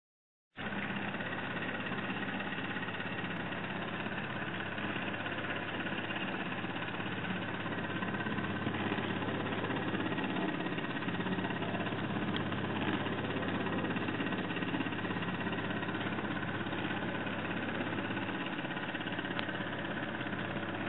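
Steady mechanical running noise as the cardboard sailing automaton's crank mechanism turns. It starts abruptly just after the beginning and keeps an even pace throughout.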